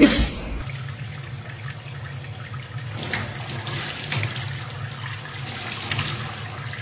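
Water running from a faucet into a stainless steel sink and splashing over a small wet monkey sitting under the stream, louder for a stretch about halfway through. A brief loud noise comes right at the start.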